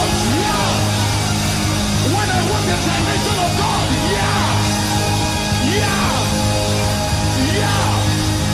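Loud worship music with sustained chords and a voice singing or calling out in long sliding swoops that recur about every two seconds.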